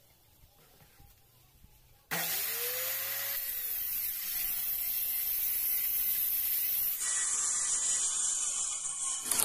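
Corded circular saw starting up about two seconds in and ripping a long cut through 3/4-inch plywood, with a steady loud cutting noise until the end.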